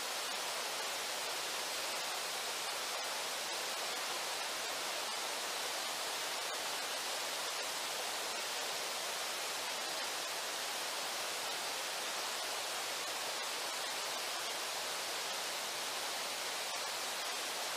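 Steady rush of flowing river water, an even hiss with no breaks or distinct events.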